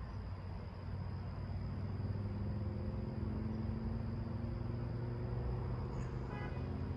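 A motor vehicle's engine hum, low and steady, over a background of outdoor noise; it comes up about a second and a half in and fades near the end.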